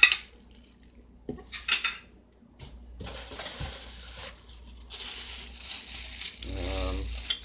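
Plastic wrapping crinkling and rustling as wrapped miter saw parts are handled and pulled from foam packing. A sharp knock at the very start, a few clicks in the first two seconds, and steady crinkling from about three seconds in.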